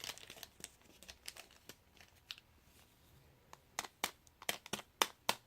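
Crinkling of small plastic bags and containers of glitter and confetti shapes being handled and poured out, with scattered light ticks. A run of sharper clicks comes near the end.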